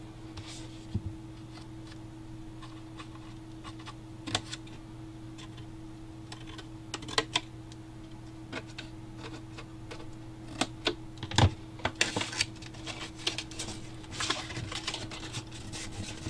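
Scissors that don't cut very well snipping through cardstock: scattered sharp clicks and crisp paper cuts. About eleven seconds in there is a louder knock, then a busier spell of cardstock and cardboard crackling and rustling as the box is handled, over a faint steady hum.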